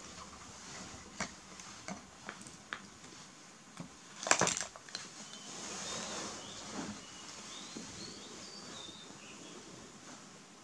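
Light plastic toys knocking and clattering as they are handled, with a few scattered clicks and a louder clatter about four seconds in. A few faint high chirps follow.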